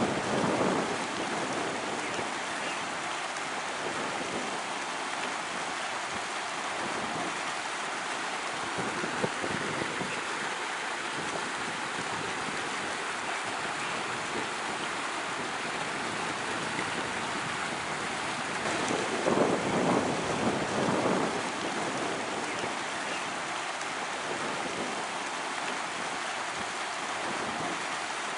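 Storm runoff running in shallow streams between the concrete energy-dissipator blocks of a flood channel, at the start of a flash flood: a steady rushing hiss that swells for a couple of seconds about 19 seconds in.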